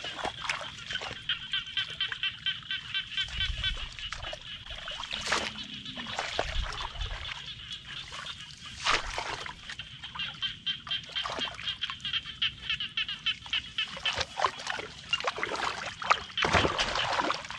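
Sloshing and splashing in shallow, muddy paddy water as a bamboo plunge-basket fish trap is waded along and pushed down into it, with a few sharper splashes. A steady, rapid high chirping chorus goes on in the background.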